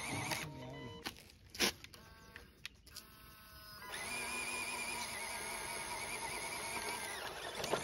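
Small electric motor whining steadily for about three and a half seconds from about four seconds in, as the RC truck's winch reels in the line to pull the stuck RC car out. Before it come a few clicks and short whirs.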